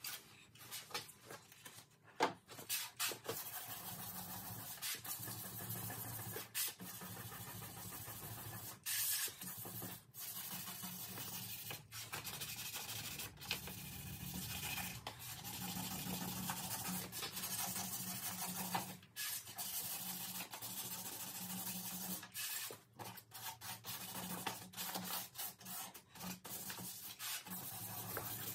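A power tool running in spells: a steady hiss over a low motor hum, broken by many short stops.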